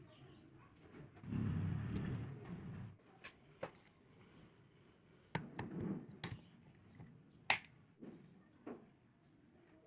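Handling noise from hands working with wires and a charger's pin plug at a small battery: a rustling rumble for a couple of seconds, then scattered sharp clicks and taps.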